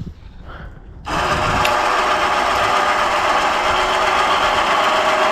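A battery-powered 2,500-pound electric winch starts about a second in and runs steadily, its motor and gears giving a steady whine as it drags a heavy oak log under load.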